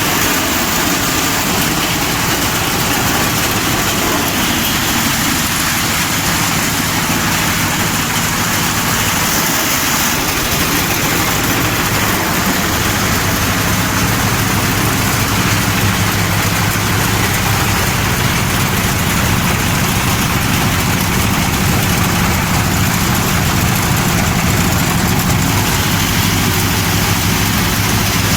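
A 36-blade chopping machine running with a loud, steady mechanical noise, its low hum growing stronger about halfway through.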